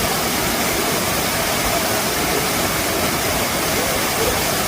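Waterfall pouring, a loud, steady rush of water.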